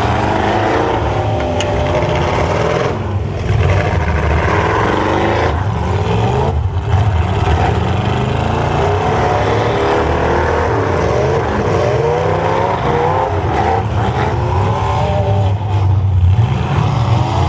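Dodge Ram pickup's V8 on open header stacks, heard from inside the cab, revving up and down hard, its pitch rising and falling over and over, with a couple of brief dips where the throttle is lifted.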